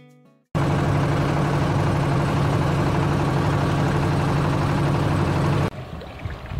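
A boat engine running steadily with a low hum, starting abruptly about half a second in and dropping away near the end to quieter wind noise.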